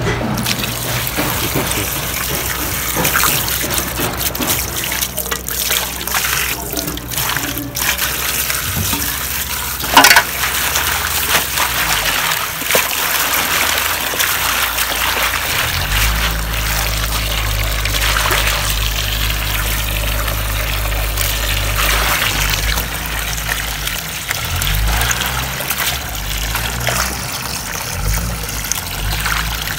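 Running water pouring and splashing as fresh spinach leaves are rinsed clean of soil. There is one sharp knock about ten seconds in, and a low steady hum joins about halfway.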